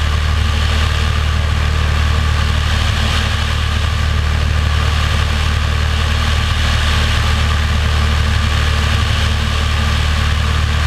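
Light single-engine plane's piston engine and propeller droning steadily in level flight, a deep even hum with a rush of air over the outside-mounted camera.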